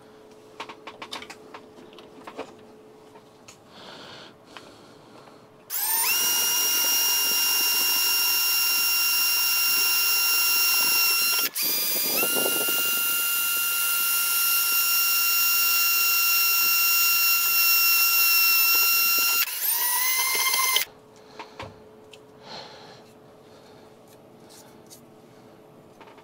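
Milwaukee cordless drill running at a steady high speed for about fifteen seconds, widening a hole with a larger bit; it stops briefly about halfway and shifts pitch just before it stops. Small handling clicks come before and after.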